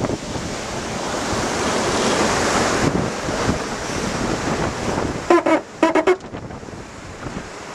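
Rushing water and spray along the hull of a Swan 45 racing yacht planing fast through rough sea, with wind buffeting the microphone; the rush swells about two to three seconds in. A few short pitched calls cut in between five and six seconds in.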